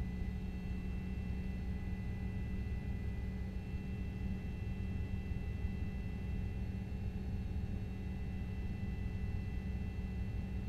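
Steady low rumble with two faint, steady high-pitched whine tones above it, unbroken throughout.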